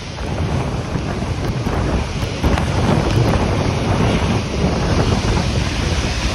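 Wind buffeting the microphone over a steady low rush from a jet airliner moving past on the airfield. The noise grows louder about two and a half seconds in.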